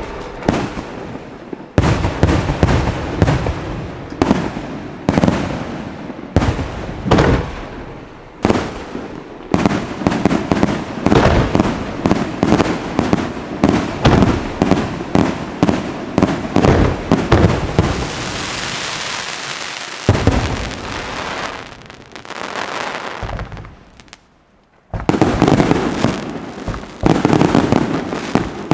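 Fireworks display: a long run of sharp bangs, a few each second, thickening into a rapid barrage in the middle, then a couple of seconds of steady hiss. The bangs fade to a brief lull a few seconds before the end, then start again.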